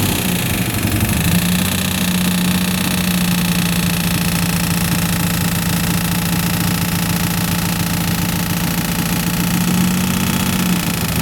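Car engine idling after a tune-up, with one steady humming tone held at a single pitch that settles in about a second in and wavers again near the end. The owner has noticed this weird noise since the tune-up.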